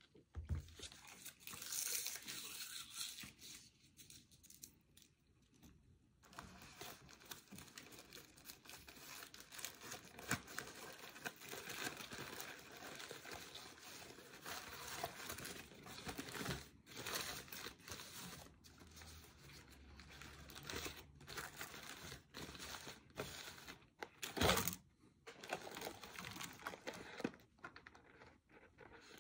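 Foil-lined burger wrapper crinkling and rustling as it is handled and unfolded, a long stretch of crackling with one sharper, louder crackle near the end.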